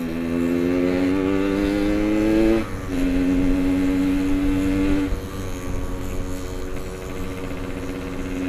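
Yamaha RX-King's two-stroke single-cylinder engine running under the rider, revs climbing for the first two and a half seconds. A brief drop about three seconds in, as at a gear change, is followed by a steady pull, then the engine eases to a lower, steady run about five seconds in.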